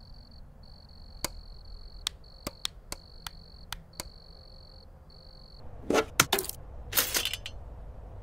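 Electronic sound effects from an animation: a thin, high, steady tone that breaks off briefly a few times, with a run of about eight sharp clicks over its first four seconds. The tone stops about five and a half seconds in, and several short noisy swishes follow.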